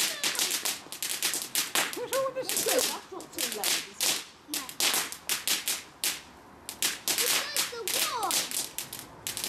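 Ground fountain firework spraying sparks with rapid, irregular crackling: clusters of sharp crackles and pops, with short lulls about three and six seconds in.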